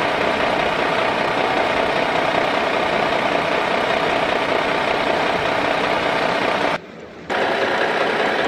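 An engine running steadily at idle, likely a tractor engine sound effect laid over the scene. It cuts out for about half a second near the end, then resumes.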